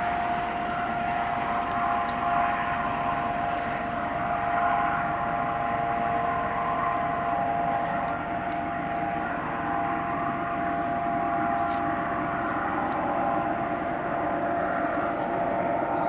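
Rescue helicopter's turbine engines and rotor running steadily, a steady whine over a rushing hiss.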